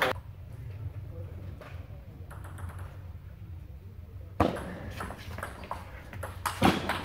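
Table tennis ball being hit back and forth in a rally: sharp clicks of the ball off the bats and table in quick, uneven succession, starting about four seconds in after a quieter spell with a few light taps.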